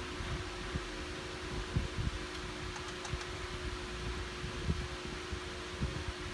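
Steady mechanical hum with a constant tone and hiss, broken by irregular soft low thuds.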